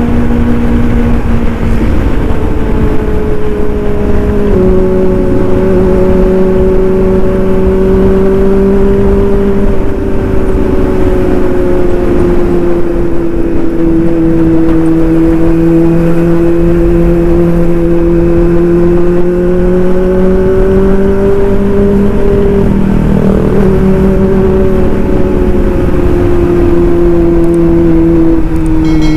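Kawasaki ZX25R's 250 cc inline-four running through an aftermarket racing exhaust while cruising at steady revs. The engine note steps down in pitch a few times, then falls near the end as the revs drop.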